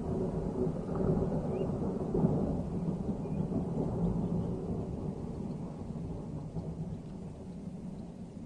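Rolling thunder: a low rumble that swells in, is loudest about two seconds in, and then slowly dies away.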